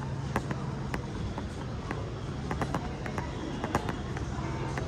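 Busy airport ambience: a steady low hum under a wash of background noise, with scattered sharp clicks and knocks all through.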